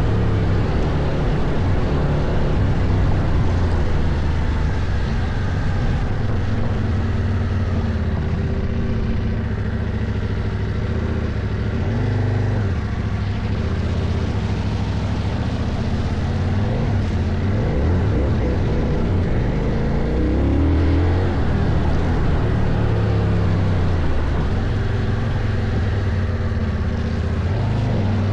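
2024 CFMOTO Ibex 800T's parallel-twin engine running under riding load off-road, its pitch rising and falling with the throttle. There is a brief drop and pick-up about twelve seconds in, and several quick swings a little past the middle.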